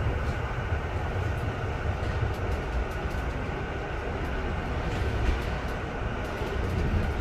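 Interior noise of a moving Alstom Coradia iLint hydrogen train: a steady low rumble from the wheels and running gear on the track, with scattered faint ticks.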